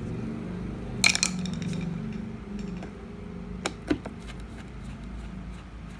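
Metal clinks of a screwdriver and screw as a scooter floor-panel screw is refitted: a quick cluster of clinks about a second in and two more just before four seconds, over a steady low hum.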